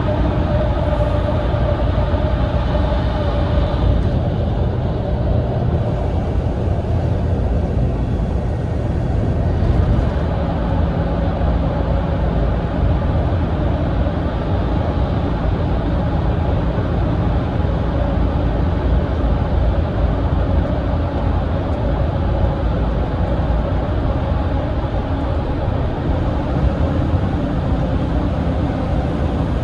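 Cabin noise inside a Mitsubishi Fuso Aero Ace coach driving at speed: a steady engine drone and road rumble. A light whine sits over it for the first few seconds, then fades.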